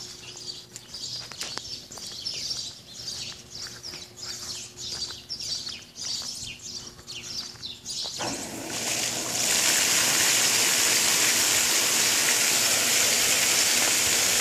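Ducklings peeping in quick falling chirps for several seconds. Then the pond fountain switches on about eight seconds in: its spray swells within a second and settles into a steady, loud splashing hiss of falling water.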